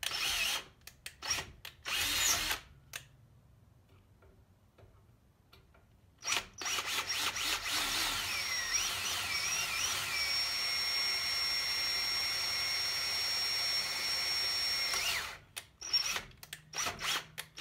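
Power drill boring bolt holes through a metal boat-trailer tongue for a swing-away hinge. A few short trigger bursts, a pause of a few seconds, then one long run of about nine seconds whose pitch wavers before settling into a steady high whine, and more short bursts near the end.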